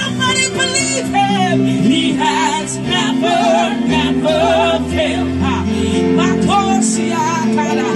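Gospel worship song: two women singing with gliding, bending vocal lines over sustained chords from a Yamaha Motif synthesizer keyboard.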